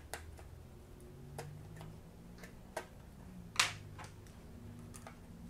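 Faint, scattered small clicks and taps of a pry tool working at a laptop motherboard's CMOS coin-cell battery in its spring-loaded plastic cradle, with one sharper click about three and a half seconds in.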